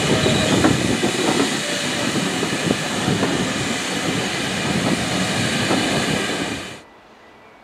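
Steam-hauled passenger coaches rolling past close by: wheels clacking over the rail joints, with a steady hiss of steam. The sound cuts off abruptly near the end.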